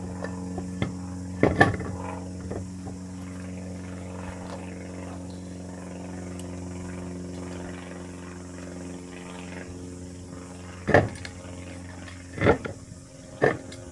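Steel wheel being hung on its hub and its wheel nuts put on by hand: a few sharp knocks and clanks, with a cluster of them near the end, over a steady low machine hum.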